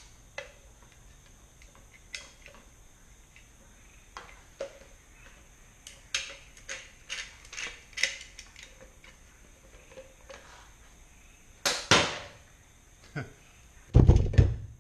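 Scattered clicks and rattles of a metal dual-cartridge caulk gun being handled and its plunger rod worked, with two sharp knocks about two-thirds through. Near the end comes the loudest sound, a heavy thump as the gun is set down on the sheet-metal van roof.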